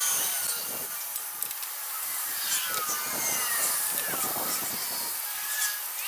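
Hand tools and metal parts being handled at a truck's front wheel hub: irregular scraping and rubbing.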